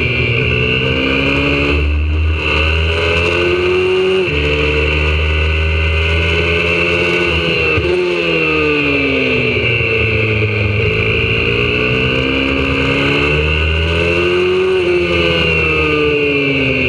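YCF 125cc four-stroke pit bike engine, recorded on board at speed. The engine note climbs under throttle and drops sharply about three times, going through gear changes and corners.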